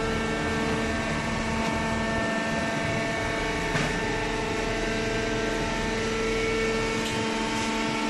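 Hydraulic baler's electric motor and hydraulic pump running with a steady, even hum made of several fixed pitches over a low rumble.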